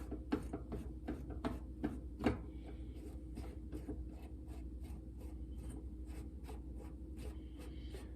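Light clicks and taps of hand work on a BMX rear wheel hub as it is taken apart, a few sharper ones in the first two and a half seconds, then quicker, fainter ticking.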